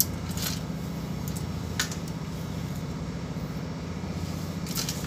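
Steady low hum of a ship's running machinery, with a few light clicks and taps scattered through it.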